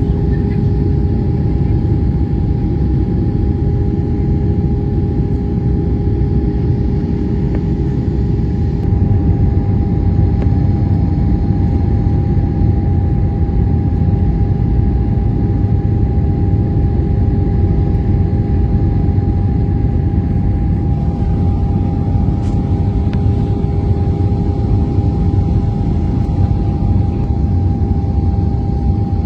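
Airliner cabin noise in flight: a steady low rumble of engines and airflow, with two steady humming tones over it.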